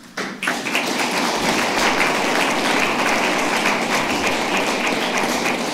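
An audience applauding, the clapping starting abruptly a moment in and holding steady.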